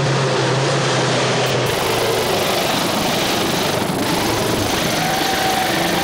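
Rally vehicle engine running loud and steady, with an abrupt change in the sound about a second and a half in.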